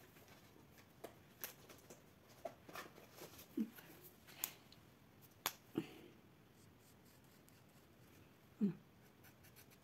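Light scattered clicks and taps of alcohol markers and their caps being handled on a craft table, the sharpest about five and a half seconds in. A short low hum of voice sounds briefly twice, the louder one near the end.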